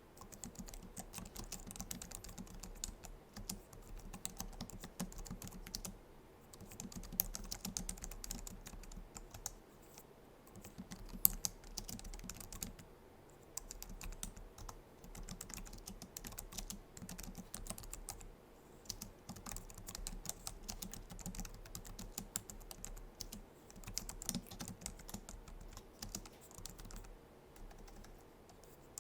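Steady typing on a Logitech MX Keys keyboard's low-profile scissor-switch keys: rapid runs of light clicks broken by brief pauses every few seconds.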